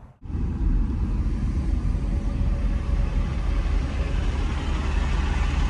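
Pickup truck on the move: a steady low rumble of engine and road noise under an even hiss, starting abruptly just after the beginning.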